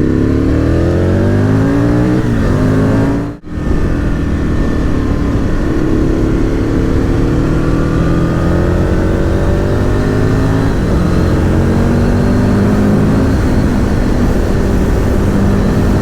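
Aprilia RSV Mille R's V-twin engine through an aftermarket Akrapovic exhaust, on the move and rising in pitch as it accelerates, with a drop in pitch at a gear change about eleven seconds in. The sound cuts out suddenly for a moment about three seconds in.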